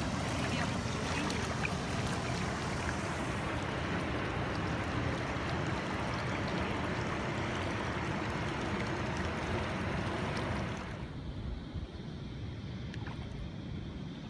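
Steady rush of shallow river water close to the microphone. About eleven seconds in, it gives way to a quieter, duller outdoor ambience.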